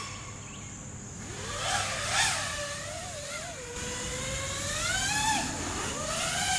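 5-inch FPV quadcopter's brushless motors (iFlight Xing-E) and propellers whining, the pitch rising and falling again and again as the throttle changes, with sharp surges about two seconds in and near five seconds.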